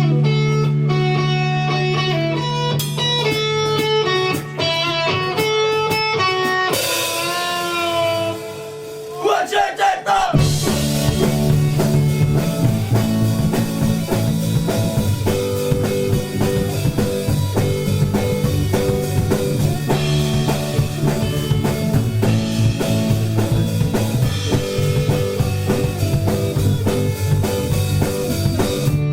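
Live rock band playing an instrumental intro: an electric guitar riff over held bass notes, then a falling run and a bent note, with drums and the full band coming in about ten seconds in.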